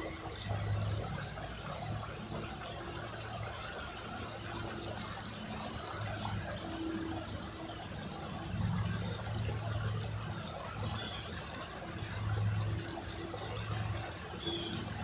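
River water flowing, a steady rushing hiss, with a low hum underneath that swells and fades every few seconds.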